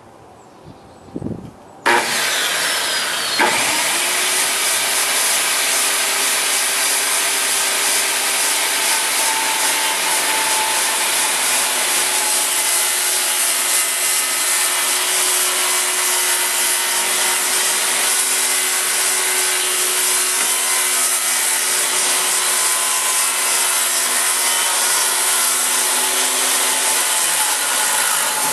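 Corded circular saw starting up about two seconds in and then running steadily as it rips a long straight cut through a sheet of plywood.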